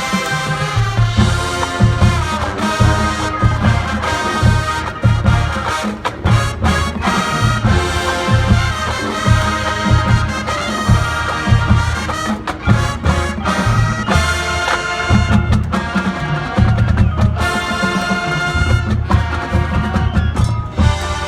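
High school marching band playing a field show: brass section with trumpets and trombones over a drumline, with steady pulsing bass notes and sharp drum hits.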